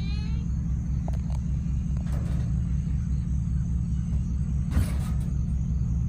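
A motor running with a steady, low, evenly pulsing rumble. A single short knock comes a little before the end.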